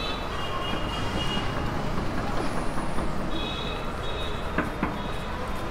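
Steady road-traffic background noise, with a faint high-pitched tone heard twice, near the start and again past the middle.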